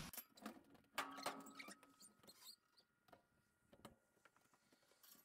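Near silence: a few faint clicks and taps in the first two seconds, then only room tone.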